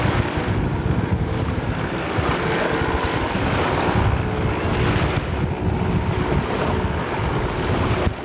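Wind buffeting the microphone over the steady drone of a jet ski engine running on the water.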